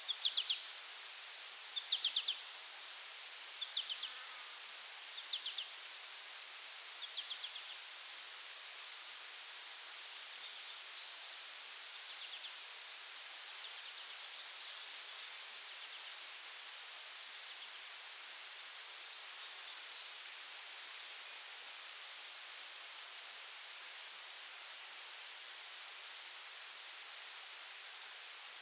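Forest insects, crickets among them: a steady high-pitched drone with a quick pulsing chirp running under it. During the first seven seconds there is also a series of short chirps about every second and a half, each fainter than the last.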